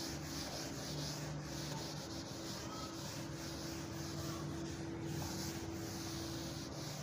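Steady background hiss with a low, even electrical hum; no distinct knocks or strokes.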